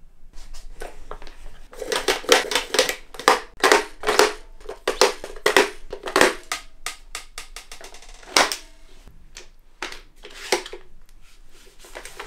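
Irregular clicks and knocks of airsoft grenade shells being handled and pushed into the revolving cylinder of an ICS multi-grenade launcher, with one sharper, louder click about two-thirds of the way through.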